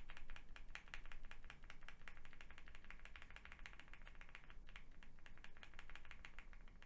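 Rapid, steady typing on a mechanical keyboard fitted with stock, unlubricated Gateron North Pole yellow linear switches: a dense run of many keystroke clicks a second, with a deep sound.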